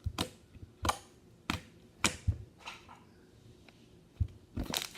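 Black glitter slime, activated with borax, being squeezed and pressed by hand, giving sharp clicking pops as trapped air escapes, about seven at uneven intervals.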